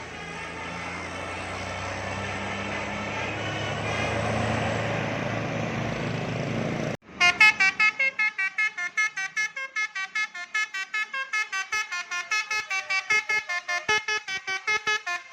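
A passing vehicle's engine and road noise building for about seven seconds, which cuts off abruptly. Then a bus's basuri telolet horn plays a rapid multi-note melody of short, pitched notes, about five a second.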